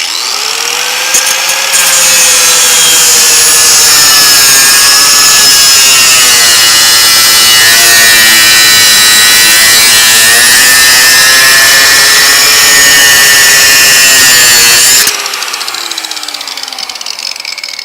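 A 4.5-inch grinder cutting through a steel bolt: a loud, steady high whine whose pitch sags and recovers as the disc is pushed into the metal. About fifteen seconds in it drops away sharply, and a quieter falling tone follows as it winds down.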